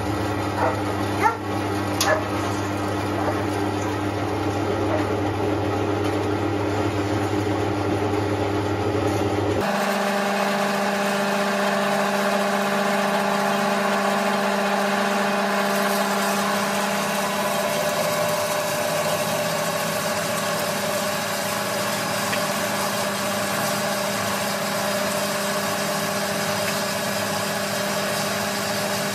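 Kaka 7-inch metal-cutting bandsaw running and cutting through metal: a steady motor hum and blade drone, with a few sharp clicks just after it starts. About ten seconds in the sound changes abruptly and the deepest hum drops away.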